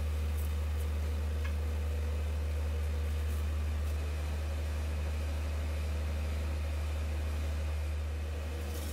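Steady low machine hum with faint steady higher tones over it, dropping a little in level about four seconds in.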